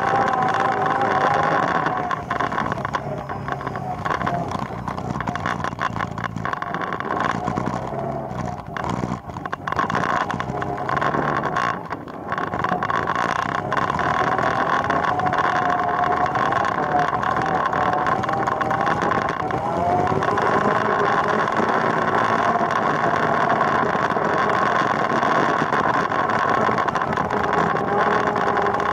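ATV engine running under way, with a steady note that wavers in pitch. It turns quieter and uneven for several seconds after about two seconds in, then runs steadily again from about thirteen seconds on.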